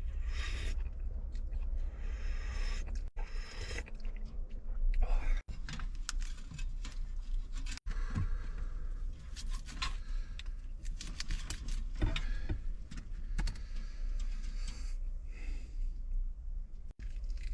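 Close-up eating sounds: chewing crunchy food, with many small clicks and scrapes, over a steady low rumble.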